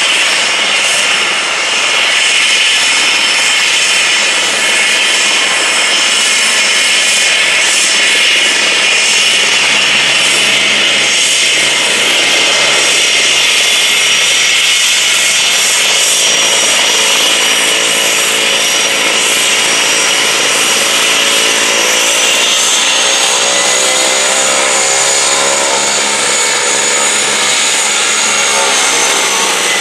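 Cessna 208 Caravan's single PT6A turboprop engine running as the aircraft taxis: a steady, loud turbine whine over a propeller drone, the whine shifting up a little about two-thirds of the way through.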